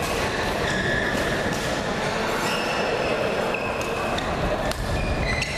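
Short high squeaks of court shoes on a badminton court over the steady din of a crowded sports hall, with a couple of sharp clicks near the end.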